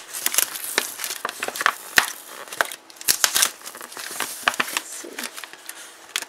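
Paper wrapping and a plastic bottle crinkling and crackling as they are handled and a craft knife picks at clear tape, in irregular crackles with sharp clicks.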